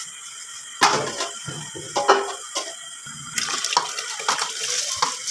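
Soaked rice poured from a steel bowl into a large pot of water, splashing and slopping in irregular bursts, with a few sharp knocks.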